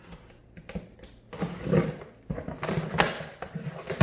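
Cardboard box of a PC case being opened and handled: irregular creaking, scraping and rustling, starting about a second in and loudest past the middle.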